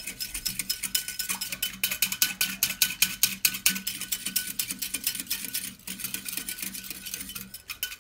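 Wire whisk beating vanillin and a little cold milk in a ceramic bowl, its wires clicking quickly and rhythmically against the bowl, several strokes a second, to whip the mixture frothy.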